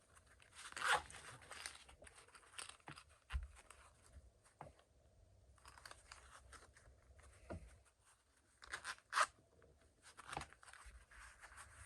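Knife packaging being torn open and handled: irregular rustling and tearing bursts with a few sharp clicks and small knocks.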